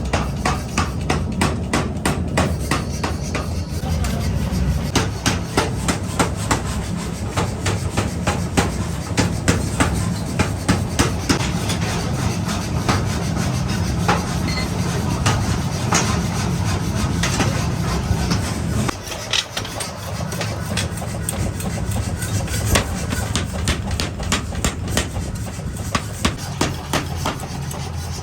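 Rapid, regular hammer strikes forging steel axe heads, metal on metal, over a steady low machine hum that drops away about two-thirds of the way through.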